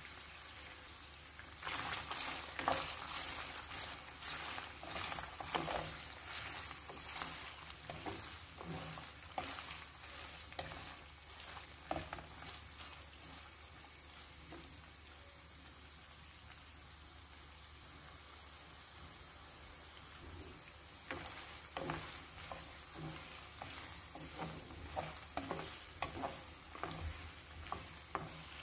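Diced onion and boiled beef cubes sizzling in oil in a coated pot, stirred with a wooden spoon that scrapes and taps against the pot. The stirring strokes come thick in the first half, ease off into a plain sizzle for several seconds, then pick up again near the end.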